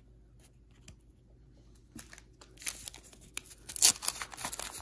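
Waxed-paper wrapper of a 1985 Topps football wax pack crinkling and tearing, starting about two seconds in as a quick run of crackles.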